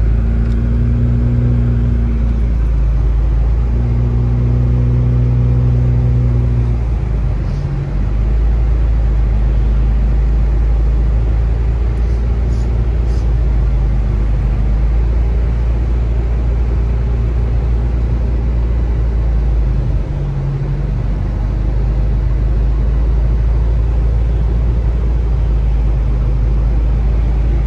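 Car cabin noise while driving on a wet road: a steady low rumble of engine and tyres, with a humming engine note that comes and goes in the first several seconds.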